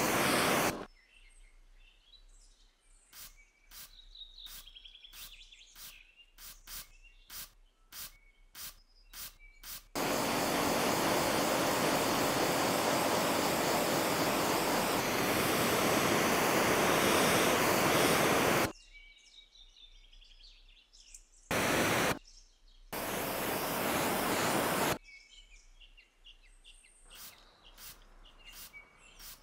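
Pressure washer spraying water onto a car's paint in long bursts, the longest lasting about nine seconds, with a quick run of about a dozen short spurts a few seconds in. Birds chirp faintly in the quieter gaps.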